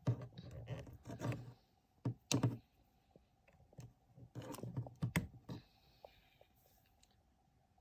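Clicking and knocking of a small plastic table lamp being handled, in three short clusters of taps and bumps.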